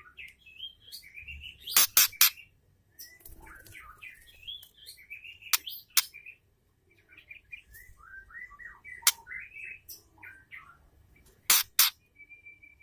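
Female white-rumped shama (murai batu) calling in quick, varied whistled phrases and chirps that slide up and down. Three times, about two, six and eleven and a half seconds in, a pair of sharp, loud clicks cuts through.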